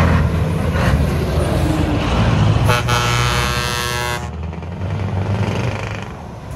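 Scania V8 diesel truck engine running at low revs while pulling away, with one air-horn blast about a second and a half long near the middle.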